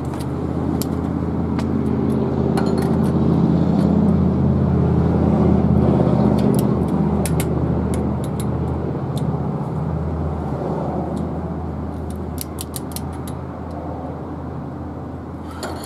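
A motor vehicle's engine running steadily, swelling over the first few seconds and then slowly fading. Scattered light metallic clicks of hand tools sound over it.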